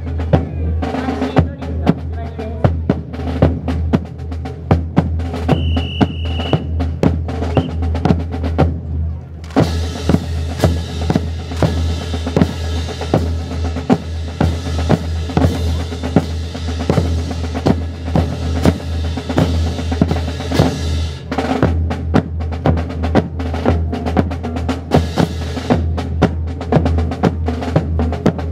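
Marching drum cadence: snare and bass drums beating a steady rhythm to keep time for a rifle drill team. Through the middle, for about ten seconds, a broad rushing noise runs under the drumming.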